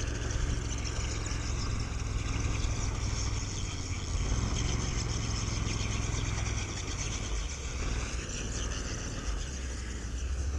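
Argo amphibious ATV on rubber tracks, its engine running steadily as it drives past towing a small shack over snow, with a high whine that dips and then rises in pitch.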